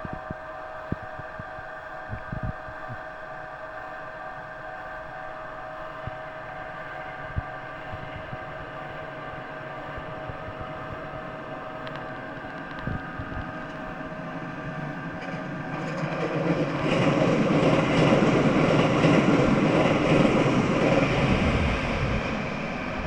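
Japanese level-crossing warning bell ringing steadily. About two-thirds of the way through, a train passes over the crossing, loud for several seconds and drowning out the bell, then easing off near the end.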